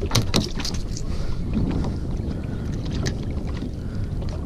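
Steady low rumble of wind and water around a small open fishing boat, with a few sharp clicks and knocks in the first second.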